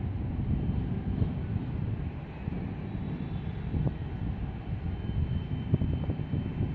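Low, steady rumble of a large loaded container ship's engine passing close by, mixed with wind buffeting the microphone.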